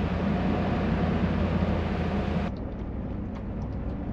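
Pickup truck driving on a dirt road, heard from a camera mounted outside on the hood: steady wind and road noise over a low engine hum. About two and a half seconds in the sound switches to inside the cab: a quieter, duller engine and road hum with light clicks and rattles.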